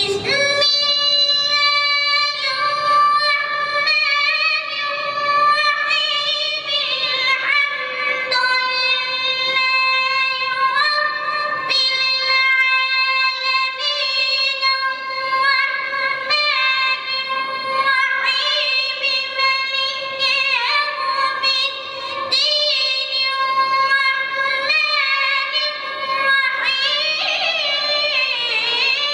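A high voice singing unaccompanied, holding long melodic notes with ornamented turns and brief breaks for breath.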